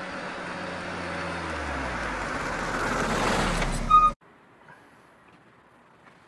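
Car driving, heard from a camera mounted on its bonnet: the engine hum drops in pitch while road and wind noise grow louder. A brief, loud high-pitched tone sounds near four seconds in, and then the sound cuts off abruptly, leaving only faint quiet.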